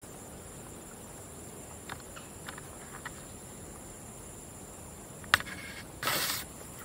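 Insects buzzing in a steady high-pitched drone, with a few faint short chirps. About five seconds in there is a sharp click, the loudest sound, and then a brief burst of noise.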